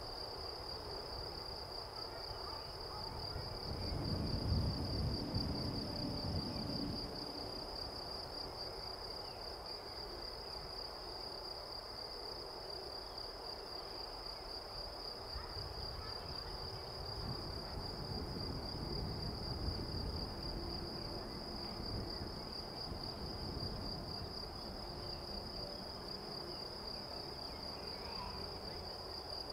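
Crickets chirring steadily and high-pitched over the low rumble of a Boeing 747-400F freighter's engines at taxi power. The rumble swells about four to seven seconds in and again in the middle stretch.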